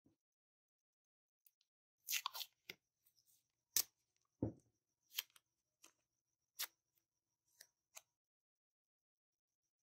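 Scattered sharp clicks and taps, roughly one a second, from small objects handled on a tabletop, with a short rustle just after two seconds in and one dull thump about halfway through.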